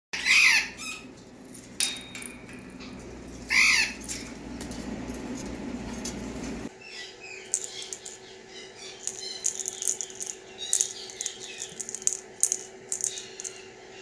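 A parrot squawks loudly twice, about three seconds apart, with some light clatter between. After a sudden change about halfway through, a small hollow 3D-printed plastic rattle toy is shaken, giving quick irregular rattling clicks over a faint steady hum.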